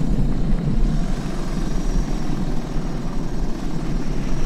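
Suzuki DR 650 single-cylinder motorcycle engine running steadily, with a dense low rumble of road and wind noise.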